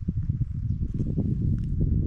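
Wind buffeting the microphone: a loud, gusty low rumble that rises and falls unevenly.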